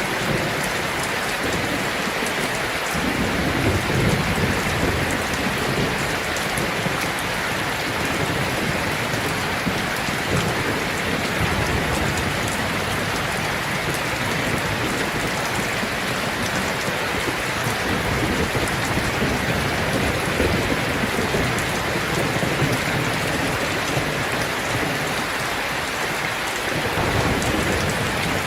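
Heavy rain drumming steadily on a tin roof, a dense even patter of drops on sheet metal. Low rumbles swell underneath a few seconds in and again near the end.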